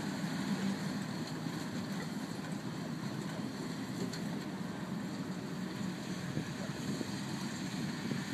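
Tractor engine running steadily as it pulls a Strautmann forage loader wagon over a mown grass field: an even low hum with no changes in pitch.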